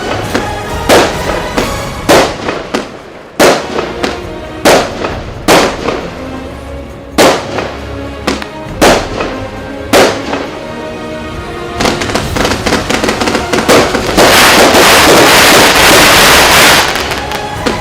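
Consumer firework battery (salute cake) firing: sharp bangs about once a second, then about two-thirds of the way through a dense crackling barrage that is loudest near the end.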